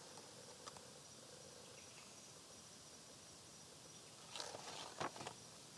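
Near silence with faint, steady insect chirring in the background, and a few soft rustles and a light knock about four to five seconds in.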